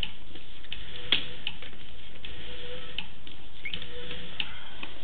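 Sewer inspection camera's push cable being pulled back onto its reel: irregular clicks and ticks, with a faint short hum recurring about every second over a steady background hiss.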